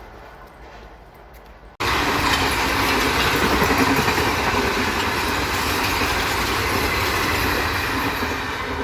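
Train running past on the track: a loud, steady rumble and rattle of wheels and carriages on the rails that starts abruptly about two seconds in, after a faint low hum.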